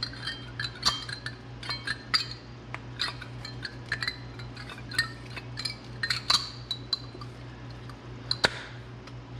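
Steel brake pads and their spring clips clicking and clinking against a brake caliper as new pads are pushed into place, the pad clips going into the caliper pistons. There is one sharper click near the end, over a steady low hum.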